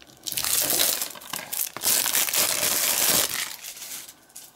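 Plastic shrink-wrap being torn and peeled off a DVD case: a crinkling and tearing that starts just after the beginning, runs for about three seconds and dies away near the end.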